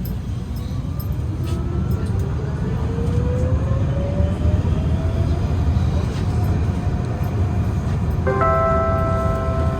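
Alstom Citadis 305 tram pulling away, a low running rumble with the electric traction motors' whine rising steadily in pitch as it gathers speed. About eight seconds in, a chime of several tones sounds: the onboard signal that comes before the next-stop announcement.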